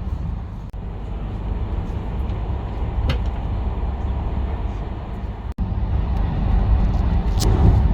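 Passenger train running, a steady low rumble heard from inside the carriage, with two brief clicks about three seconds in and near the end.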